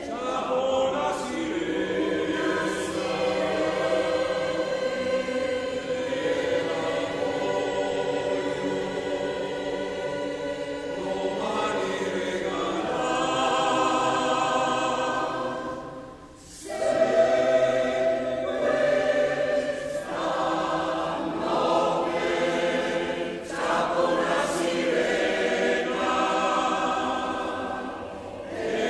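Choir singing a marinaresca (sea song) in long held chords, with a brief break about sixteen seconds in.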